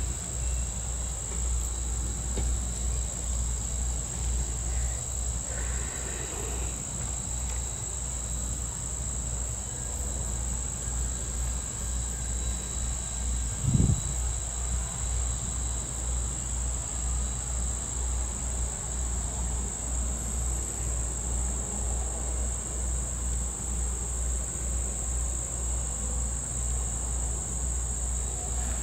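A steady, high-pitched drone of summer insects in chorus, over a low pulsing rumble, with a single short thump about fourteen seconds in.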